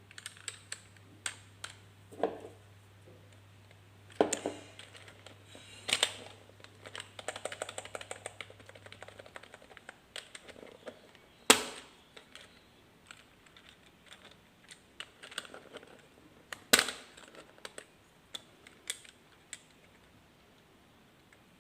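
Keys of a membrane computer keyboard being typed on: scattered key presses with a quick run of typing from about seven to nine seconds in, and a few louder single strikes.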